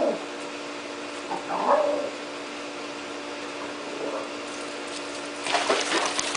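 Small dogs yipping and barking in short calls at a cat, three times in the first four seconds, over a steady hum; near the end comes a harsher, hissing burst with scuffling clicks.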